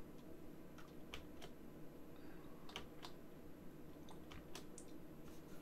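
Faint computer keyboard keystrokes: about nine sharp clicks at uneven intervals.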